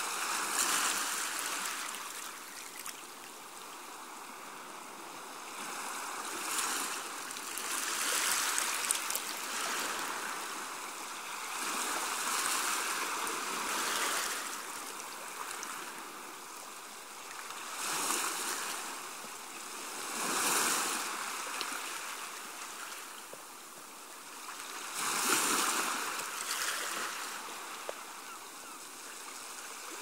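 Small waves washing onto a sandy beach, each swelling and then fading over a second or two every few seconds, under a steady hiss of water.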